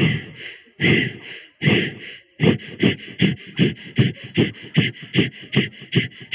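Forceful rhythmic breathing close to a microphone, alternating inhales and exhales, as in a yogic breathing exercise. It starts slow, then about two and a half seconds in quickens to about four or five quick breaths a second.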